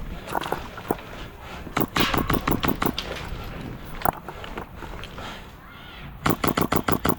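Airsoft guns firing rapid bursts of sharp clicking shots, about ten a second: one burst about two seconds in lasting about a second, and another starting near the end, with a few single shots between.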